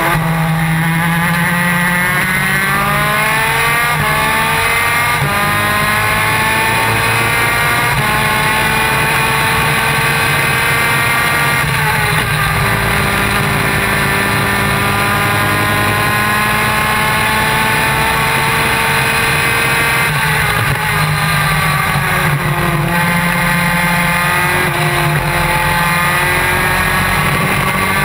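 250cc two-stroke superkart engine at full racing effort, heard onboard. It climbs in pitch with short breaks about four and eight seconds in, falls away around twelve seconds, holds fairly level, falls again around twenty seconds, and climbs again near the end.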